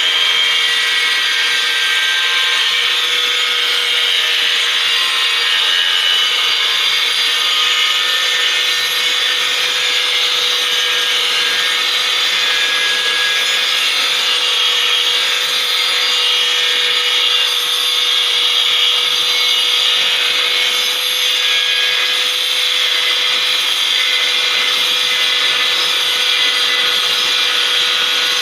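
Heavy rain falling steadily with strong wind, a constant dense hiss, with a faint steady hum underneath.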